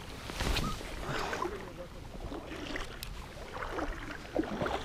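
Small waves lapping and splashing at the water's edge, an irregular, uneven wash.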